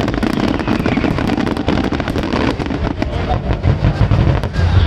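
Fireworks display going off: a dense, rapid run of bangs and crackles over a steady low rumble.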